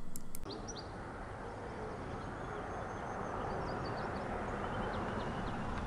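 Outdoor ambience: a steady, even rush of noise with a low, shifting rumble, and a few faint, short high chirps.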